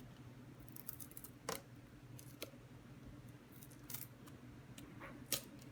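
Adhesive tape being peeled off the plastic parts of a cat water fountain: faint scattered crackles with a few light clicks of plastic.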